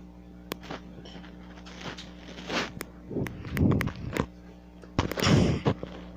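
Close-miked mouth sounds of someone drinking water: a few swallowing gulps with sharp wet clicks, over a steady low electrical hum.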